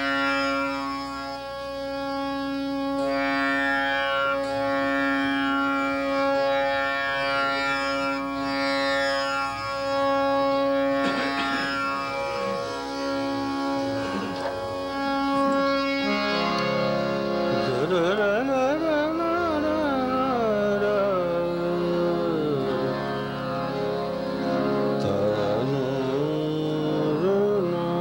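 Tanpura drone with strummed string flourishes; about sixteen seconds in, a male voice begins a slow, ornamented alap in raga Hansadhwani over the drone.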